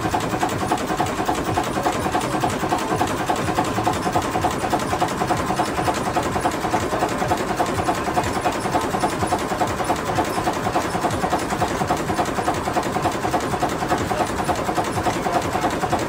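1929 Gardner 3J5 three-cylinder two-stroke reversible marine diesel engine running steadily, a fast, even mechanical beat of its firing strokes.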